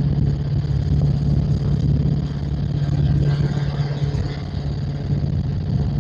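Helicopter in flight on a fast, low pass: a steady drone of rotor and engine with a constant low hum.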